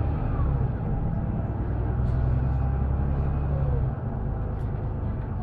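Cabin sound of a Mercedes-Benz Conecto LF city bus under way: its OM926LA straight-six diesel running steadily under power with road and tyre noise. About four seconds in the low engine drone drops to a quieter run.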